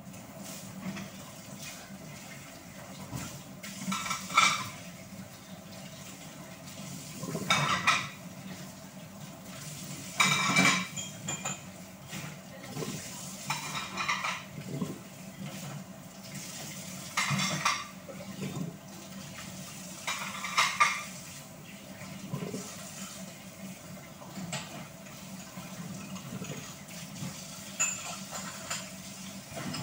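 Dishes and cutlery clattering in a stainless steel sink as they are hand-washed under a running tap, with a louder clatter every few seconds over the steady sound of the water.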